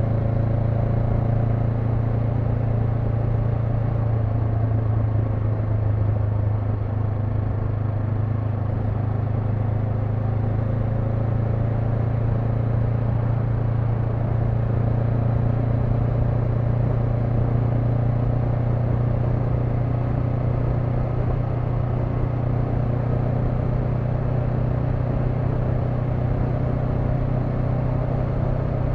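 Honda NX500's 471 cc parallel-twin engine running steadily under way, its note dipping a little about six seconds in and then holding an even pitch.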